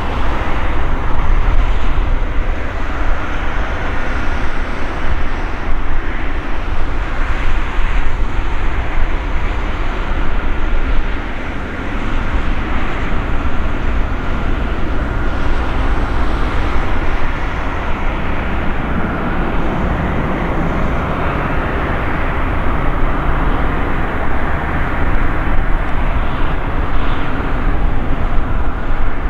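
Airbus Beluga A300-600ST's two General Electric CF6-80C2 turbofan engines running at taxi power as the aircraft moves slowly on the airfield. The sound is a steady jet rumble with a faint high whine, dipping briefly about a third of the way in.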